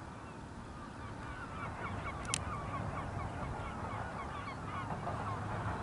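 Distant jet engines of an Airbus A320 give a low rumble that grows louder as the aircraft begins its take-off run. Over it, a bird gives a rapid series of short honking calls, and a single sharp click comes about two seconds in.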